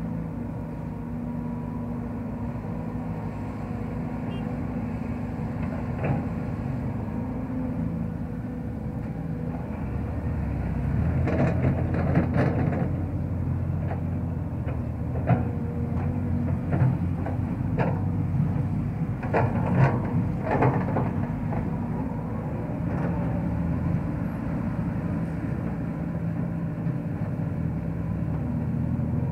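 Sumitomo hydraulic crawler excavator's diesel engine running steadily, then working harder under load from about ten seconds in as it digs and swings a bucket of dirt. Sharp knocks and clanks come in bunches through the middle.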